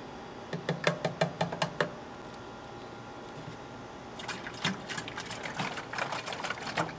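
Metal spoon stirring fertilizer into water inside a plastic watering can, a quick run of clinks lasting about a second and a half. From about four seconds in, the can is shaken and the water sloshes around inside it to dissolve the fertilizer.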